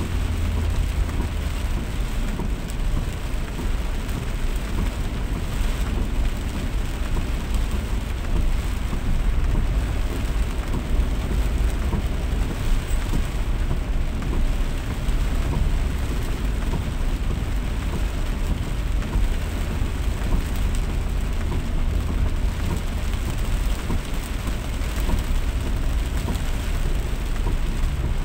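Heavy rain pouring steadily, with a constant low rumble underneath.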